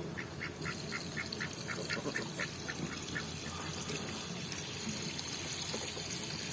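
Ducks calling in a fast, even run of short quacks, about five a second, that fades out about two and a half seconds in, over a steady high hiss.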